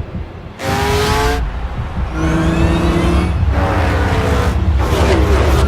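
Several race car engines running at full speed in a race, overlapping, their pitch rising and sliding as the cars accelerate and pass.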